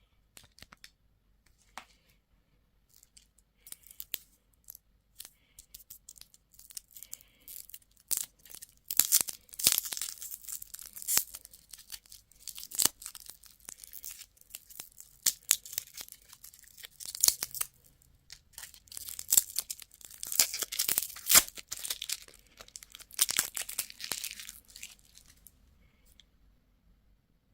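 Candy wrapper being torn open and crinkled: a few scattered small clicks at first, then dense crackling and rustling through the middle, tapering off near the end.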